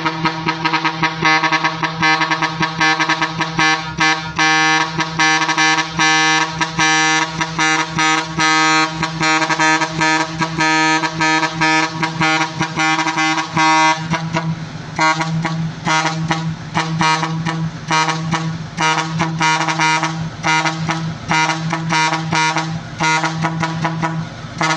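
Musical air horns playing a quick, choppy run of short pitched notes over one steady held low horn tone. The higher notes thin out about halfway through.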